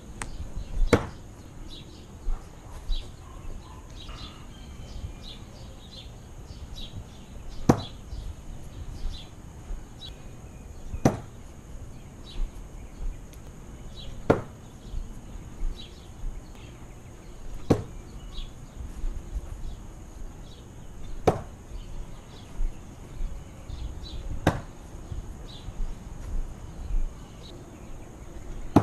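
Heavy steel throwing knife (Kim Vitaly's Tantogata, small, 220 g) striking a wooden target seven times, one sharp impact every three to four seconds.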